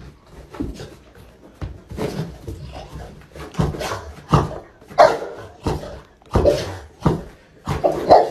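A young dog barking in play, with a run of short barks that grow louder from about halfway through.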